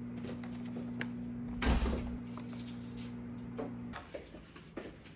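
Clear plastic clamshell fruit container being opened and handled, with one sharp plastic crackle about a second and a half in and a few lighter clicks after it, over a steady low hum.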